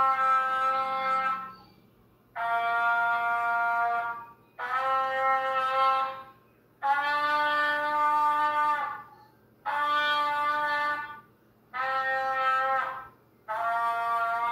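Beginner trumpet played alone, heard through a laggy video call: a series of about seven held notes, each about two seconds long with short breaks between, from a small up-and-back scale exercise on open C, D and E. The playing is not yet consistent, with air puffing the player's cheeks.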